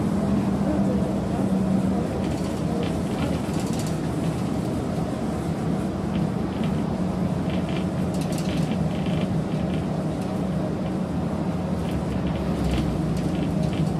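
Steady engine drone and road noise heard from inside the cab of a large vehicle cruising on a highway bridge, with a low hum and a few faint rattling clicks scattered through.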